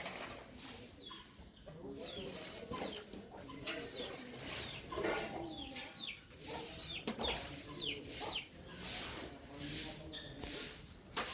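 Small birds chirping repeatedly, short high calls that fall in pitch.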